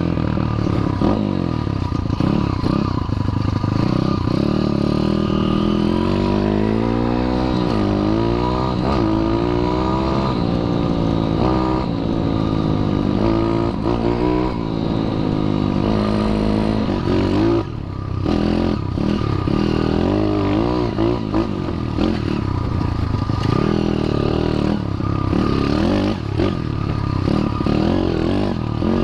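YCF pit bike's single-cylinder four-stroke engine running under way, its pitch rising and falling again and again as the throttle opens and closes, with a brief drop in the engine note a little past halfway.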